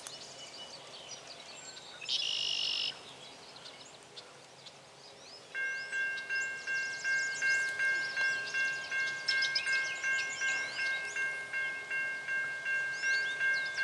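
Railroad grade-crossing warning bell starts ringing about five and a half seconds in, a regular ding of roughly two strokes a second, signalling the approaching train. Birds chirp throughout, and a short, loud, high buzz sounds about two seconds in.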